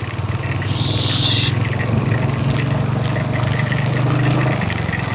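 Royal Enfield Hunter 350's single-cylinder engine running, getting louder over the first second, holding steady, then easing off near the end. A short hiss sounds about a second in.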